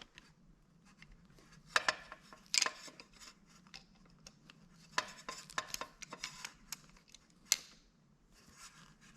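Scattered light clicks and small metallic clinks of a light fixture's cord grip fitting being tightened down by hand, with small parts handled between turns.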